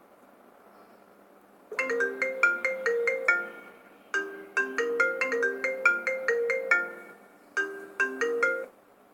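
iPhone ringtone playing a quick melody of short bell-like notes, starting about two seconds in and repeating in three phrases with brief pauses between them.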